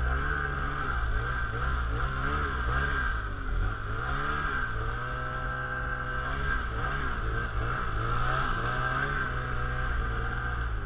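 Ski-Doo Renegade 600 E-TEC snowmobile's two-stroke twin engine running on a snowy trail ride, its revs rising and falling with the throttle and held steady for a moment just past the middle, over a steady hiss.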